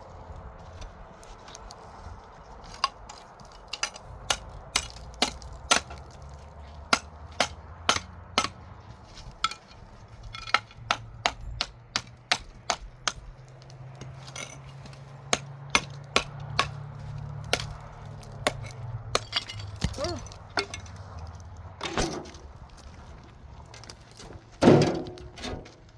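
A metal tool striking hard ground or stone over and over, about one to two blows a second, in a long run with a brief pause midway, then a few scattered hits and one heavier knock near the end.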